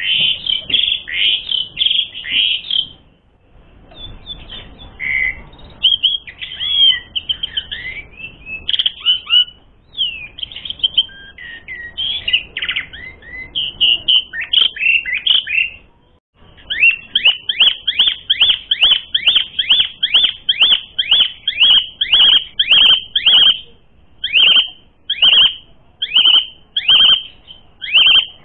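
Asian pied starling (jalak suren) singing: loud, varied chattering and whistled phrases, then, from about halfway, a long series of repeated sharp down-slurred notes, about three a second, slowing to about one and a half a second near the end.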